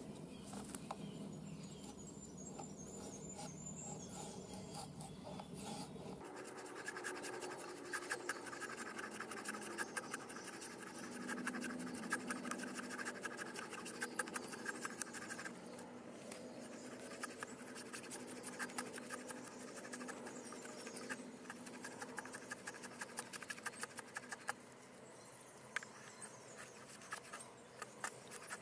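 Thin wooden sticks drawn over and over against the edge of a Cold Steel Recon Scout fixed-blade knife that is wedged in a stump, shaving off feather-stick curls: a run of faint scraping strokes.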